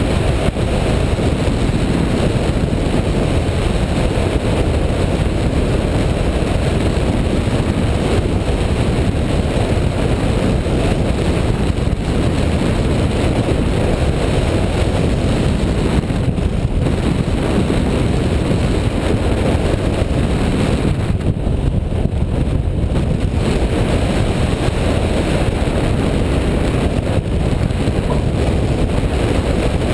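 Steady, loud rush of wind buffeting the microphone of a camera mounted on a hang glider in flight, a low rumbling airflow noise with no engine.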